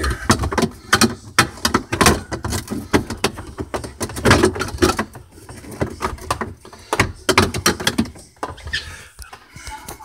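Plastic refrigerator interior panels and fittings being handled and fitted into place: a busy run of clicks, knocks and rattles.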